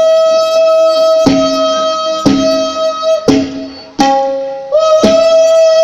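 A long, loud held horn-like tone, jumping briefly to a higher note about four seconds in, over heavy tabla strokes about once a second: a musical imitation of a train's horn signalling departure.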